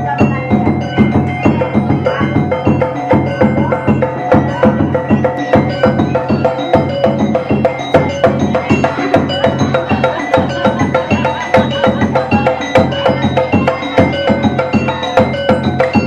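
Background music: a steady beat under a run of short, bright pitched notes.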